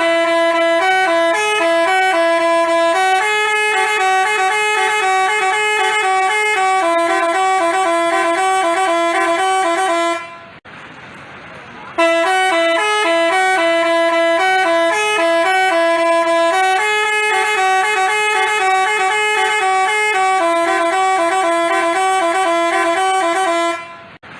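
Basuri telolet bus horn playing a multi-note tune of quick stepped notes in two parts. The tune stops about ten seconds in and, after a short gap, plays again the same way.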